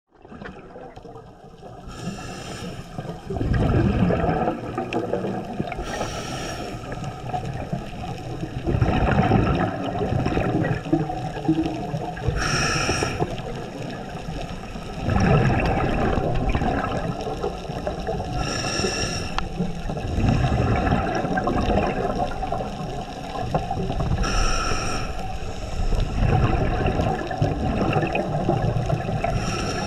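Scuba diver breathing through a regulator underwater: a short hissing inhale followed by a longer low rush of exhaled bubbles, repeating about every six seconds.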